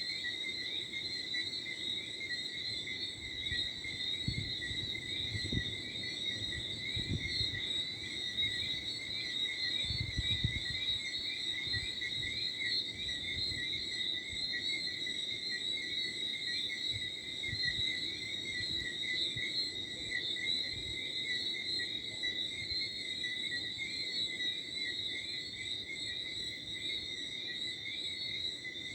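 Steady, shimmering night chorus of crickets and frogs, high-pitched and unbroken. A few low rumbles of light wind come in about four to six seconds in and again around ten seconds.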